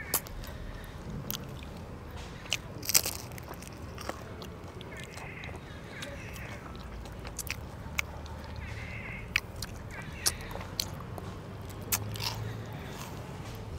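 Close-miked chewing and biting of fresh fruit segments, mouths working on juicy orange and pineapple pieces. Sharp wet mouth clicks and smacks come irregularly, about ten in all, the loudest about three seconds in.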